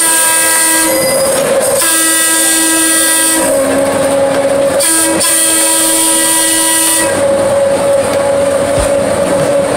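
Diesel switcher locomotive's air horn sounding three blasts, the first short and the second and third longer, heard from an open passenger car close behind the engine. After the last blast, about seven seconds in, the locomotive and cars go on running with a steady rolling noise.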